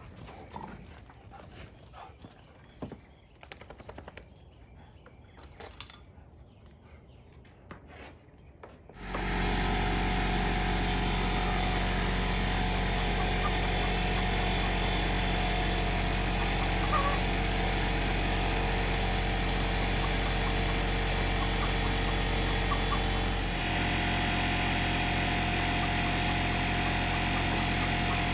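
Faint handling knocks, then a small air compressor switches on about nine seconds in and runs steadily at full load, pumping up a wheelbarrow's flat tire.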